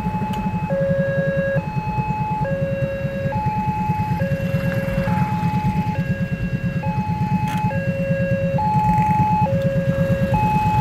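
Railway level-crossing warning alarm sounding a two-tone signal, a higher and a lower tone taking turns just under a second each, repeating steadily. A low engine rumble runs underneath.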